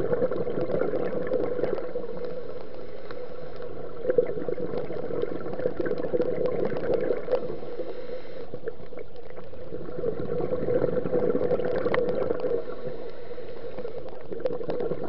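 Muffled underwater noise heard through a waterproof camera housing: a steady rush with crackling, swelling in waves every five or six seconds, typical of a scuba diver's exhaled bubbles from the regulator.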